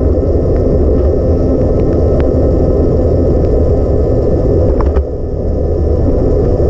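Steady low rumble of wind buffeting the camera and bicycle tyres rolling on a wet road while riding, with a few faint ticks; the noise briefly drops about five seconds in.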